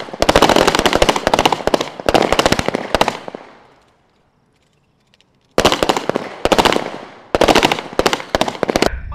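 Volleys of 9 mm pistol fire from a firing line of M18 service pistols, many shots overlapping in quick succession. The shots come in four clusters, with a pause of about a second and a half in the middle, and each cluster trails off in an echo.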